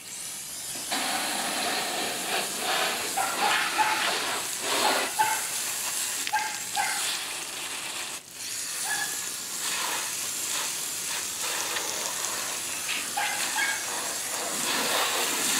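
Garden hose spray nozzle hissing as its spray washes over an alligator carcass on a folding table. The spray breaks off briefly about eight seconds in.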